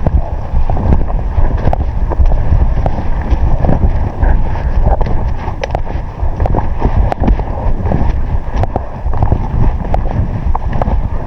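Strong wind buffeting the microphone: a loud, steady low rumble with scattered small knocks and clicks.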